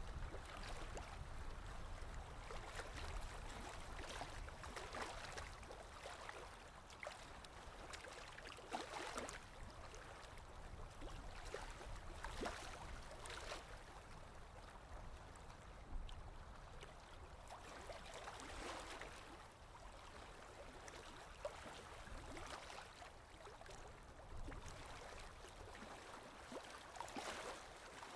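Pen or pencil tip scratching across paper in irregular drawing strokes, some short and some drawn out over a second or so.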